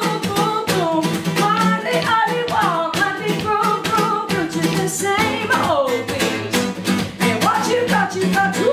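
Acoustic guitar strummed fast and hard in a steady driving rhythm, with wordless singing sliding down in pitch over it.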